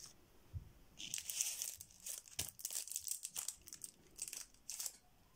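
Rustling and crinkling with small clicks, in short irregular bursts from about a second in, as makeup is handled and an eyeshadow palette is picked up.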